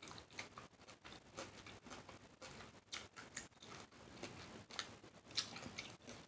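Faint, close-miked chewing of shrimp salad: irregular wet smacks and small mouth clicks, several a second.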